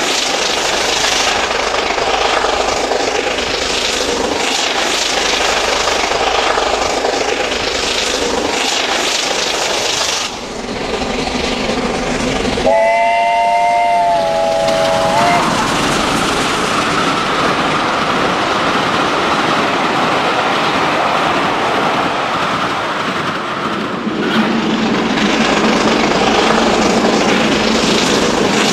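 Recorded sound of a steam locomotive running with its train. A steam whistle sounds for about two and a half seconds near the middle, and the running sound changes character twice where the recording is edited.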